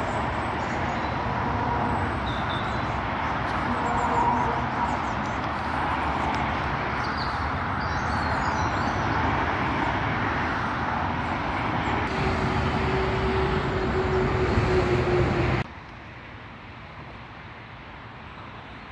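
Steady noise of motorway traffic, with a few faint bird chirps above it. A steady hum joins about twelve seconds in. Then the sound cuts off abruptly to a much quieter background.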